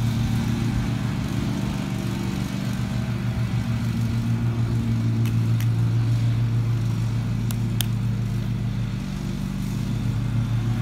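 A steady low engine hum that holds one even pitch throughout, with a few faint short clicks a little past halfway.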